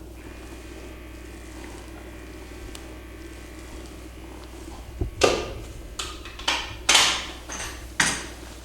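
A steady low hum, then a quick run of about six sharp slaps or knocks over the last three or four seconds.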